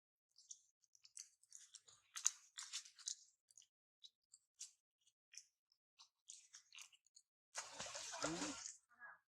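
Close-up chewing of something crunchy: a run of small, sharp crunches and clicks, then a louder rustling crunch lasting about a second near the end.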